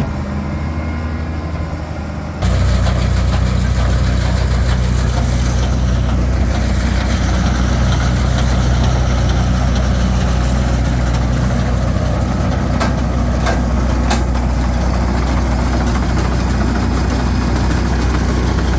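Heavy farm-machinery engine running steadily; about two seconds in it abruptly gets louder with a stronger low hum, and a few light clicks come past the middle.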